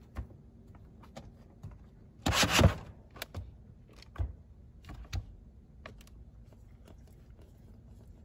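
A cat moving about a wire cage and stepping into a plastic litter tray: a short rustling scrape about two and a half seconds in, with scattered light taps and knocks around it.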